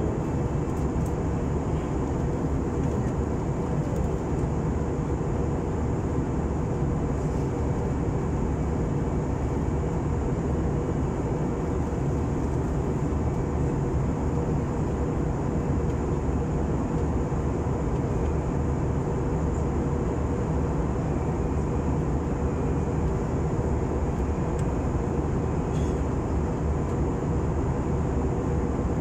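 Steady drone of an airliner's cabin in flight: engine and airflow noise, strongest at the low end, with a faint steady hum running through it.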